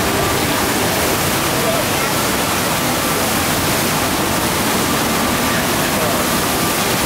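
Steady, even rush of water from a FlowRider sheet-wave machine, pumped in a thick sheet up the ride's padded slope.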